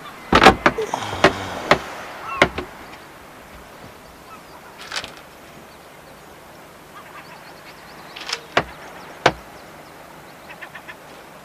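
A scattered series of sharp knocks and clunks of hard objects: a quick cluster in the first two and a half seconds, a single knock about five seconds in, and three more between eight and nine and a half seconds. Faint bird calls come between the knocks.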